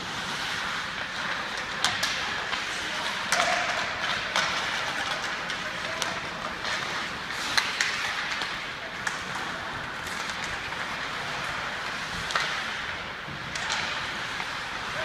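Ice hockey play: skate blades hissing and scraping on the ice, with sharp clacks of sticks and puck every second or two at uneven intervals.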